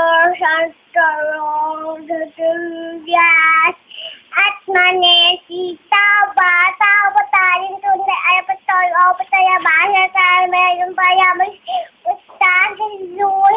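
Young girl singing solo in a high child's voice, holding notes in phrases broken by short pauses.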